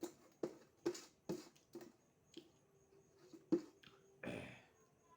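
Close-up eating sounds of beef being chewed: a run of wet mouth smacks about two a second, then a few scattered smacks and a short noisy burst about four seconds in.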